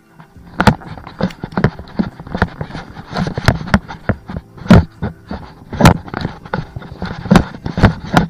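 Footsteps of a hiker walking a trail, an even run of knocks about two a second, with the camera carried close.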